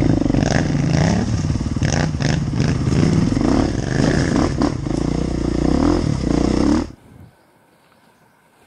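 Off-road motorcycle engine running and revving at low speed, its pitch rising and falling; it cuts off suddenly about seven seconds in.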